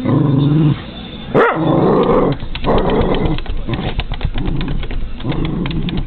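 Cairn Terrier growling low and buzzing, with a sharp bark about a second and a half in, followed by more growling. In the second half, rapid clicks and scratches as the dog moves against the window.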